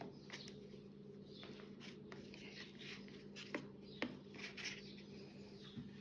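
Soft rustling and a few light ticks of 4 mm macramé cord being pulled and knotted by hand, with hands brushing the woven straw mat beneath, over a faint steady low hum.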